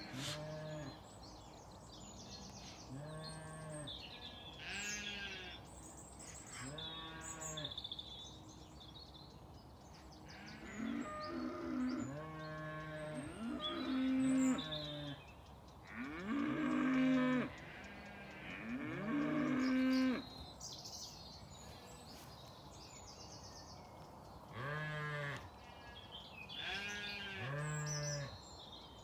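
Sheep, ewes and lambs, bleating over and over: about a dozen short wavering calls, some deeper and some higher, the higher ones sliding up at the start. The loudest calls come in the middle. Faint bird chirps sound in the background.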